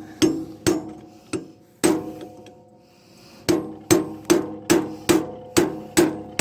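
Hammer striking a steel pulley to drive it onto a lawn tractor's transmission shaft, each blow ringing metallically. About a dozen blows: a few, a pause of about a second and a half, then a steady run of two to three a second.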